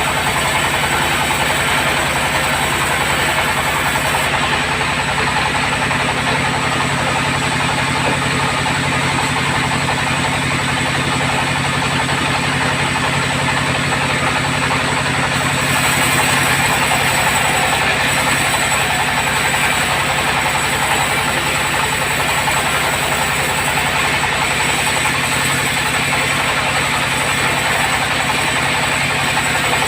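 Bandsaw sawmill running steadily, its blade cutting through hard acacia timber over the drone of its drive. The sound gets a little louder and brighter from about halfway through.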